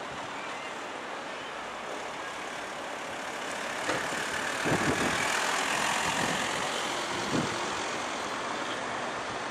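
A van drives past close by. Its engine and tyre noise swells about four seconds in and fades over the next few seconds, with a few brief knocks as it goes by, over steady outdoor background noise.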